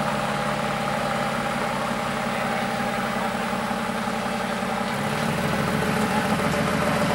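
Mercedes-AMG GT R's twin-turbo V8 idling steadily. About five seconds in, the idle note deepens and gets a little louder.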